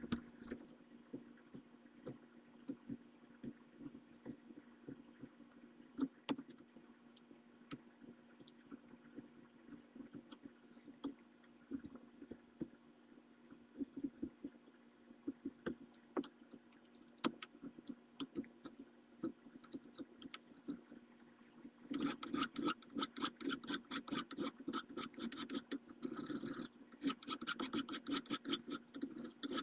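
Hand chisel paring the end of a wooden rifle handguard, giving short scattered cuts and scrapes. Near the end a round file is stroked rapidly back and forth across the wood, with a brief pause partway through.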